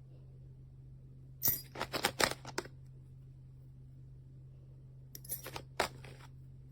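Two short clusters of light metallic clinks and clicks, small hard objects knocking together, about a second and a half in and again near the end, over a steady low hum.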